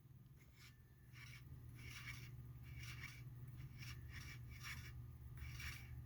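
Slow motor of a Leslie 147 bottom-rotor two-speed motor stack, faintly humming as it struggles to turn, with irregular scratchy rubbing sounds; the motor is only trying to spin and is due for a rebuild.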